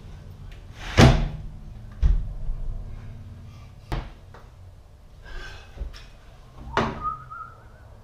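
Sash of a newly fitted sliding replacement window being slid open and shut, knocking against the frame four times; the first knock, about a second in, is the loudest.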